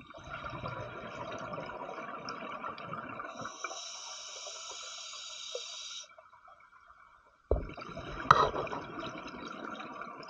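A scuba diver's regulator heard underwater: exhaled bubbles rumbling and gurgling, then a higher hiss of the next breath. After a short gap, another bubbly exhalation starts abruptly, with a sharp tap about eight seconds in, the loudest sound.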